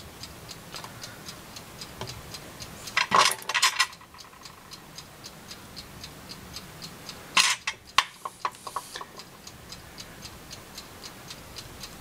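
A clock ticking steadily, about three to four ticks a second. Two louder short bursts of noise break in, about three seconds in and again about seven and a half seconds in.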